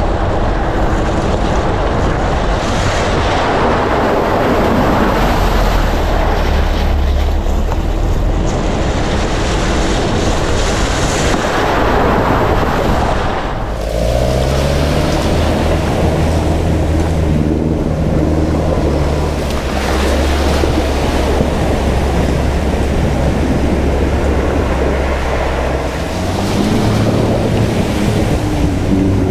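Classic Land Rovers driving through a shallow river. For about the first half, the loud rushing hiss of water spray thrown up by the wheels. After a break about halfway, a Land Rover's engine hums steadily under the splashing of water as it fords the river.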